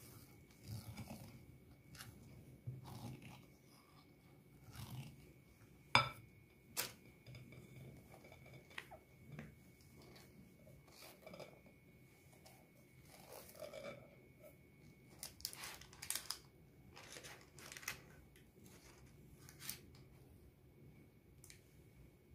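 Silicone spatula scraping a glass bowl and spreading thick cake batter over parchment paper in a baking tray: scattered soft scrapes, taps and paper crinkles, with one sharp click about six seconds in. A faint steady high whine runs underneath.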